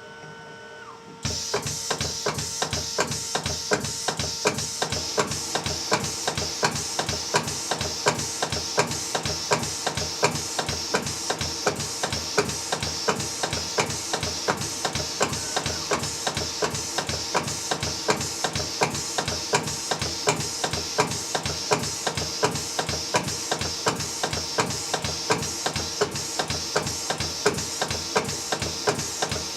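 µ-Grinder 96 laboratory pestle-and-mortar grinder starting up about a second in, then running steadily with a rapid, even knocking rhythm as it grinds small seed samples.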